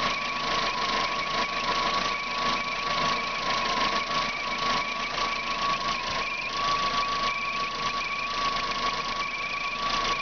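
Car engine idling with a steady high-pitched whistle over it, and a fainter wavering squeal higher up that comes and goes. The whistle is what the owner first took for the water pump, though he says the pump has been checked with the belts off.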